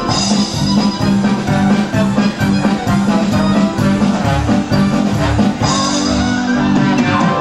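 Small live band playing an instrumental number, with keyboard, trombone and drum kit.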